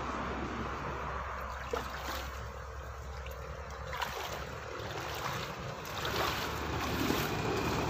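Shallow muddy water sloshing and dripping as a cast net is gathered by hand and hauled out of the water, with a few small splashes and getting louder near the end as the net comes up.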